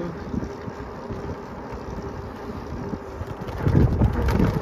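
Steady rumble of a bicycle being ridden along a sidewalk: tyre noise and wind on the microphone. The rumble swells louder about three and a half seconds in.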